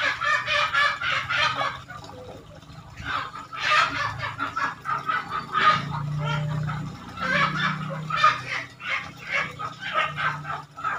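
Poultry calling in rapid runs of short repeated notes, in several bouts with short pauses between them. A low steady hum sits beneath the calls through the middle few seconds.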